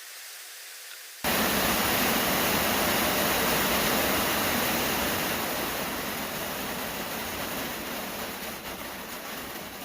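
Heavy rain pouring down as a loud, steady rushing hiss. It starts abruptly about a second in and slowly eases off.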